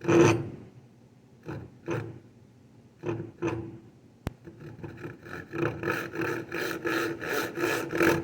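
Back saw cutting into wood to start a kerf: a few separate light strokes, then, about five seconds in, a quicker steady run of short back-and-forth strokes, several a second.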